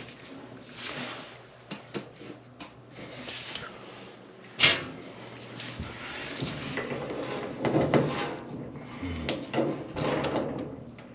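Scrapes, clunks and knocks of things being moved and handled, with one sharp knock about four and a half seconds in.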